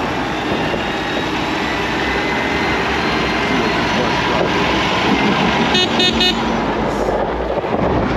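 Steady wind and road noise while riding through city traffic. About six seconds in, a horn toots three quick high-pitched beeps.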